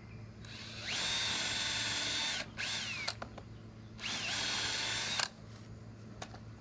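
Handheld power drill working into a wooden frame post in two runs of about a second and a half each. The motor whine rises quickly to speed, holds steady, then winds down.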